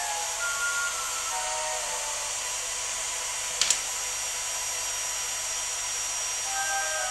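Vacuum cleaner running steadily with a high whine, sucking air through its hose from a wooden vacuum-forming box. A single sharp knock about three and a half seconds in.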